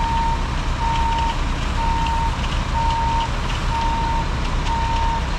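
Reversing alarm on a concrete mixer truck beeping about once a second, a single steady tone, over the truck's engine running: the truck is backing up.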